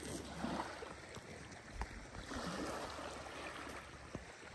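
Small waves washing and lapping on a gravel shore, a steady rush of water noise.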